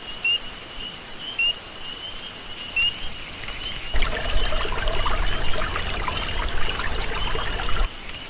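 Water splashing and trickling for about four seconds from midway, over a bird's short rising chirps repeating roughly once a second.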